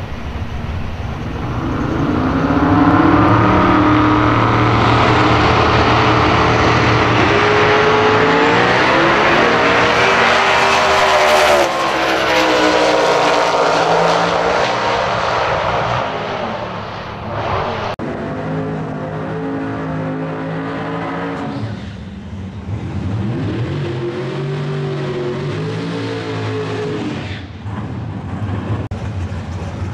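Twin-turbo V8 Ford Cortina drag car launching and accelerating hard down the strip, its engine pitch climbing and dropping back through the gears for about twelve seconds. Later the same engine is revved hard in two bursts of several seconds each.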